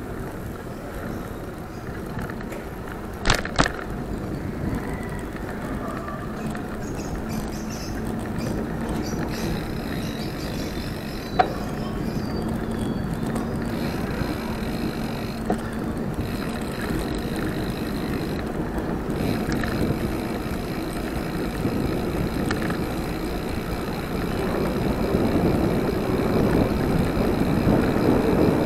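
Steady wind and tyre noise from riding a bicycle on a paved street, growing louder near the end. Two sharp clicks come about three seconds in.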